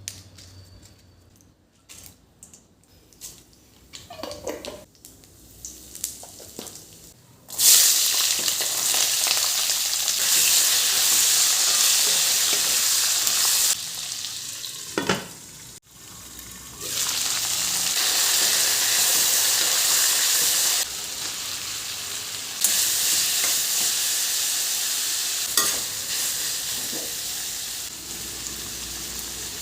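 Food sizzling and frying in hot oil in a pan. After a few light clicks of utensils, the sizzle starts suddenly about seven seconds in and carries on, dipping briefly twice in the middle.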